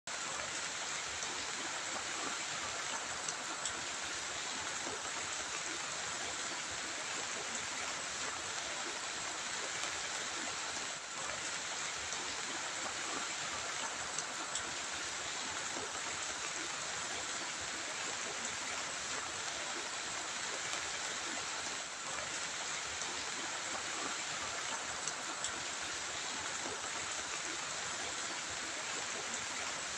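Heavy rain falling, a steady even hiss of water.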